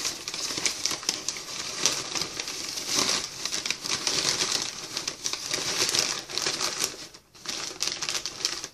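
Crumpled paper packing being rustled and pulled out of a cardboard shipping box: a continuous dense crinkling and crackling, with a brief break near the end.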